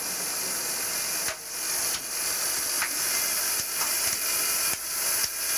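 Steady rushing hiss of snow being thrown by the Rhaetian Railway's electric rotary snow blower 9218, heard from inside its cab, with a few faint ticks scattered through it.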